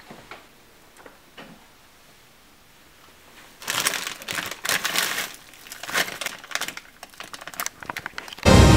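Plastic bags of frozen food crinkling and rustling as hands rummage through them in a freezer compartment. It starts about three and a half seconds in, after a few faint clicks, and goes on in uneven bursts.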